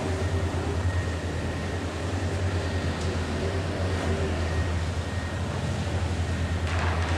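Steady low hum over a constant background hiss, with a faint thin high tone held through most of it. A brief soft rustle comes near the end.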